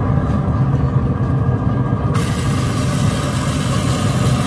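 Steady low mechanical running noise from the open Pit Boss pellet grill with its wind-up rotisserie turning the chicken. About two seconds in, a steady high hiss suddenly joins it.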